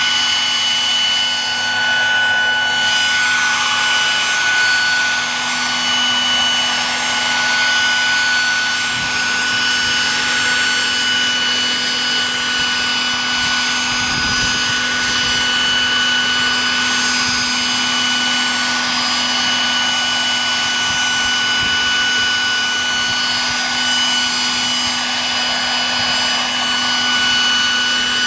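Radio-controlled scale MD 900 helicopter in flight, its rotors and drive making a steady whirring noise with a high, even whine.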